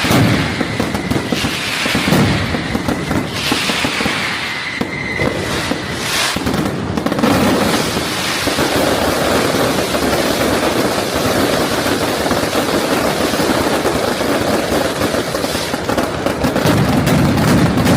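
A fireworks barrage of dense, continuous crackling and bangs. Several whistling rockets fall in pitch during the first seven seconds, and deeper booms build up near the end.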